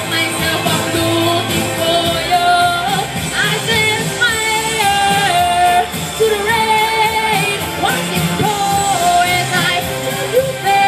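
A woman singing live into a microphone over loud pop-rock backing music, amplified through stage PA speakers. The vocal line is made of long held notes with slides between them.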